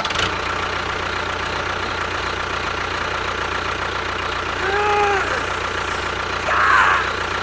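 A small motor running with a steady hum, as on a DIY model tractor or bulldozer. A short tone rises and falls about five seconds in, and a brief hiss comes near the end.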